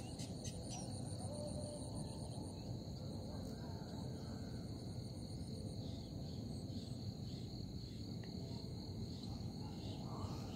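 Insects chirping steadily in a rural wetland. A fast, high trill fades out about halfway through, over a low, steady background noise.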